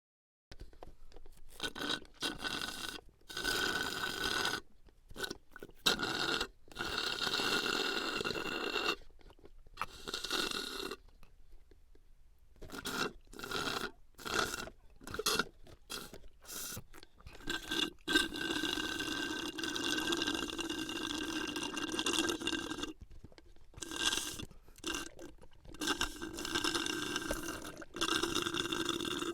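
Sucking through a drinking straw: a run of short pulls and several longer ones of a few seconds each, a breathy, hissing draw with a fixed hollow resonance, stopping and starting between pulls.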